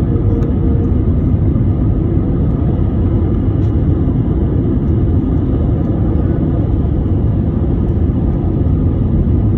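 Steady engine and airflow noise of an Airbus A320 heard from inside the passenger cabin: a loud, even rumble, heaviest in the low end.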